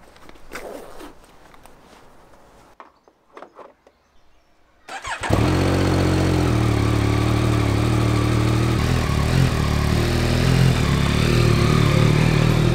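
Faint rustles and clicks, then about five seconds in a Yamaha Tracer 9 GT's three-cylinder engine is started and settles into a steady idle, its pitch shifting a little near the end as the bike moves off.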